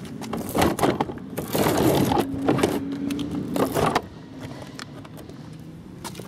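Plastic wheels of a wheeled trash cart rolling and rattling over a concrete sidewalk, knocking over the joints; the rolling stops about four seconds in.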